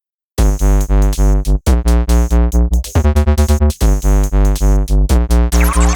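Electronic music with a synthesizer and a pulsing heavy bass beat, starting abruptly and with a rising sweep near the end.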